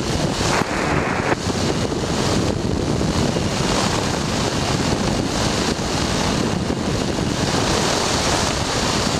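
Steady wind rush and buffeting on the microphone of an open ultralight trike in flight.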